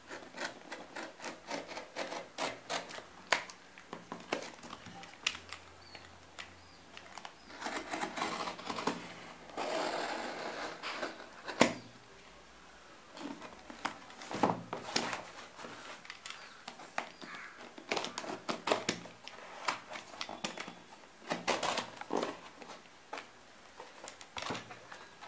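Cardboard shipping box being cut open with a snap-off utility knife: irregular clicks, scratching and scraping of the blade through packing tape and cardboard, with a couple of longer scraping stretches. Near the end the box flaps are pulled open with crinkling.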